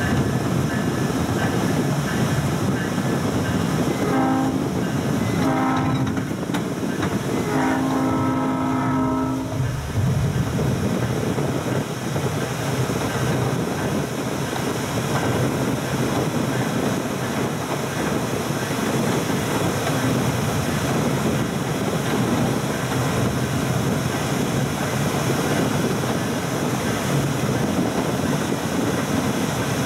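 South Shore Line electric commuter train running along the rails with a steady rumble, its horn sounding two short blasts and then one longer blast a few seconds in.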